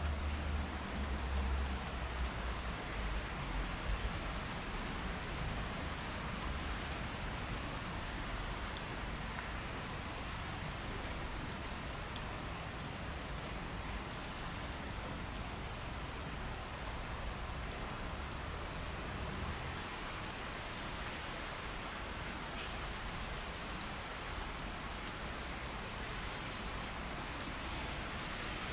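Steady hiss of rain, with a low rumble underneath that dies away about two-thirds of the way through.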